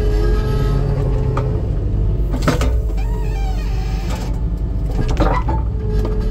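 Skid steer engine running under load with a steady whine from the hydraulics as a homemade splitter wedge is driven down through a log. Two sharp cracks, about two and a half and five seconds in, as the wood splits, with a brief squeal between them.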